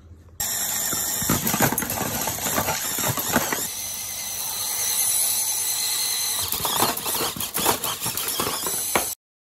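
A VEX V5 robot's 600 rpm intake running: a high-pitched motor whine with rapid clattering knocks as it handles plastic rings. It cuts off suddenly near the end.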